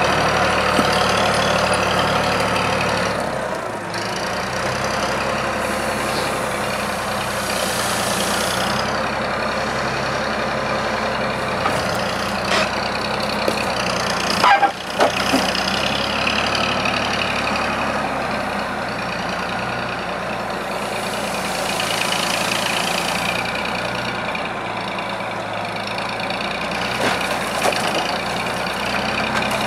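Diesel engine of a small forestry forwarder running as its hydraulic crane works, the engine note shifting as the crane moves. About halfway through the grapple knocks against logs in a loud clatter, with a few lighter knocks later on.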